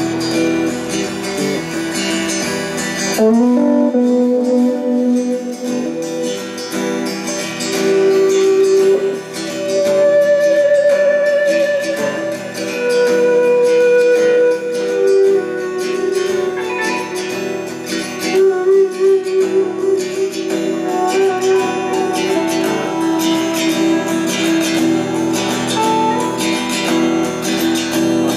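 Live band playing a guitar-led song: strummed acoustic guitar with electric guitars and bass guitar, growing louder about three seconds in, with long held lead notes that waver on top.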